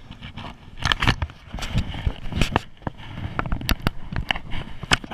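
Footsteps crunching on snow over frozen lake ice, about two steps a second, over a steady low rumble.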